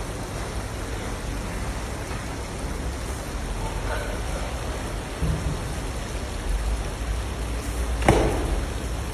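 Rice being tipped from a metal tray into a giant kazan of plov, pattering and hissing like rain as it scatters into the hot oil and broth. A sharp clatter about eight seconds in as a trayful goes in.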